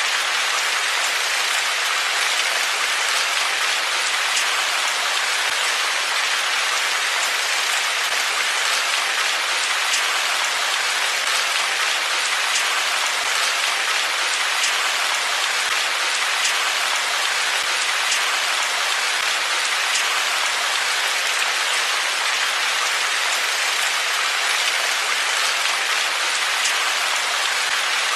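Steady rain, a dense even hiss with the patter of individual drops striking a surface.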